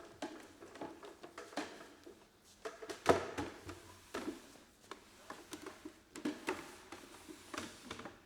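Irregular knocks and clicks of wooden parts being handled in a workshop, the loudest knock about three seconds in.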